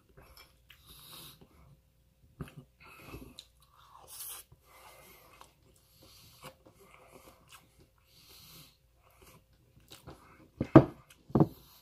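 A person chewing a mouthful of rice and shrimp-stuffed tofu, with small clicks of a fork on a plate, and two short louder sounds near the end.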